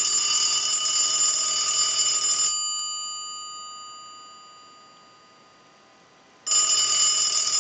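Brass elephant telephone's newly replaced bell ringing on a test ring signal. The first ring lasts about two and a half seconds and then fades away slowly, and the next ring starts about six and a half seconds in: the ring cycle, checking that the replacement bell rings dependably.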